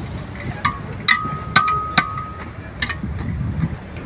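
Steel tyre lever striking and prying against a steel truck wheel rim while working the tyre bead: about five sharp metallic clanks in the first three seconds, several leaving a brief ringing tone.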